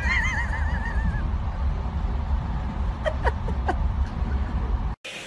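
A cat's high yowl that wavers up and down in pitch for about a second, then three or four short quick sliding calls about three seconds in, over a steady low rumble. The sound cuts off suddenly near the end.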